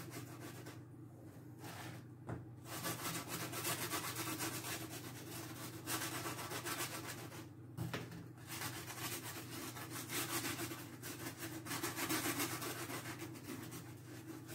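A peeled garlic clove rubbed hard back and forth over crisp toast, a rapid dry rasping of strokes that stops briefly a few times.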